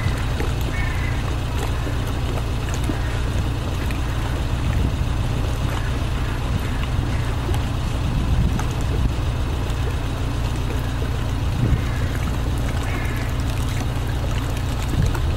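Steady low rumble of outdoor city background, with a few faint mallard quacks near the start and again near the end.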